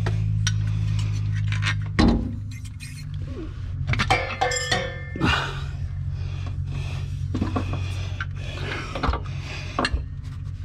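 Metal clinks and knocks as a new rear shock absorber is worked up into its mounts at the rear axle of a Fox-body Mustang. The loudest knock comes about two seconds in, and a cluster of clinks with brief ringing follows about four to five seconds in, over a steady low hum.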